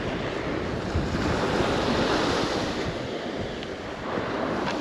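Surf washing onto a beach, a steady rush that swells and then eases, with wind on the microphone.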